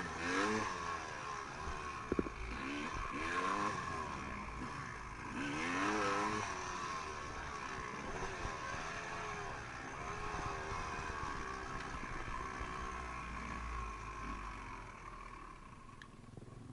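Small off-road vehicle engine running and being revved up and down again and again, its pitch rising and falling, easing off near the end.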